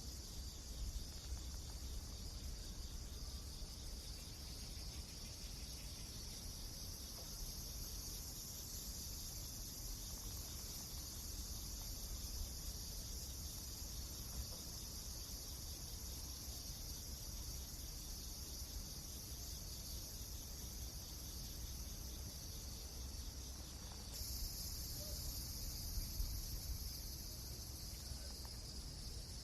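Insects chirring steadily in a high band over a low rumble, with a few faint pops; the chirring shifts slightly in pitch about 24 seconds in.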